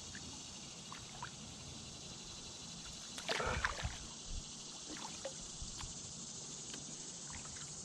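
Water trickling and lapping around a canoe, with small knocks of gear or paddle against the hull, under a steady high chorus of insects. A short louder noise comes about three seconds in.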